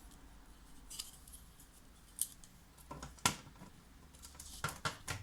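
Scattered sharp plastic clicks and taps of keyboard parts being handled and fitted back into place, the loudest a little over three seconds in and a quick run of three near the end.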